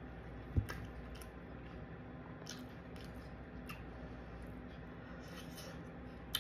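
Close-up eating sounds: chewing and wet mouth clicks, with a plastic fork picking at broccoli in a foam takeout container. One louder knock about half a second in.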